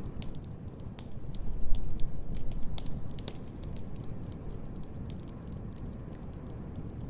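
Wood fire in a fireplace crackling, with irregular sharp pops over a low, steady rumble. The rumble swells louder for a second or so early on, then settles.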